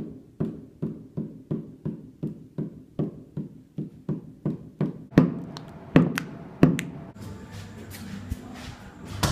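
A pen tapped over and over on paper on a wooden tabletop, about two taps a second in an even rhythm. The taps end in a few louder, uneven knocks five to seven seconds in.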